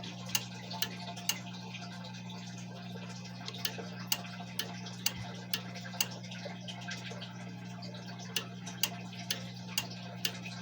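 Edwards EST 6632 fire alarm panel's bell circuit clicking on and off in groups of three with pauses between. This is the pattern set by DIP switch 3: three rings, a wait, three rings. A steady low electrical hum runs underneath.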